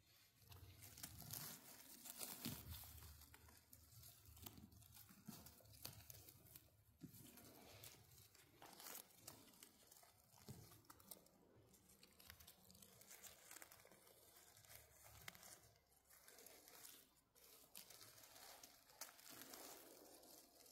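Faint, irregular rustling and crackling of forest-floor litter being disturbed.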